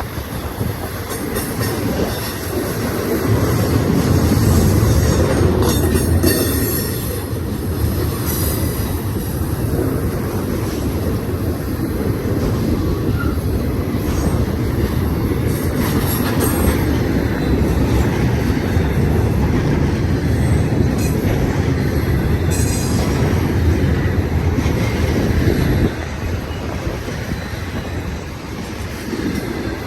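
BNSF intermodal freight cars rolling past at speed on a curve: a steady heavy rumble of wheels on rail, with short high squeals from the wheels a few times as the train leans into the curve.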